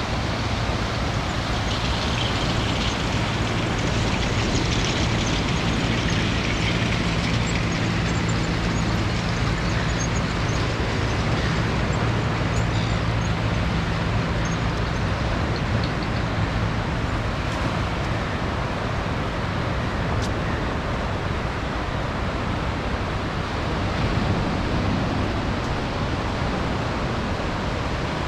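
Steady wash of surf and wind noise, with a motor vehicle's engine humming through the first half and fading out.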